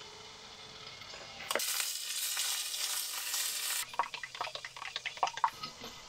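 Sausages sizzling in a frying pan on a gas hob, a loud hiss for a couple of seconds in the middle that cuts off sharply. Then a run of quick clicks and knocks as something is stirred in a plastic jug.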